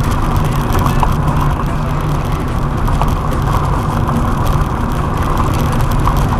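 JAC T40 compact SUV driving, with loud steady engine and road noise that does not change, heaviest in the low end, and a few faint ticks.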